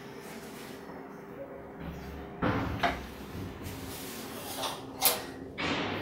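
A window being unlatched and pushed open: a run of knocks and rattles from the latch and frame starting about two seconds in, with a sharp click near the end.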